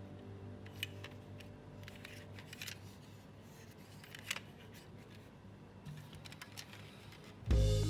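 A few sparse, sharp light clicks and taps of small hard objects being handled, while a music tone fades away; music starts again near the end.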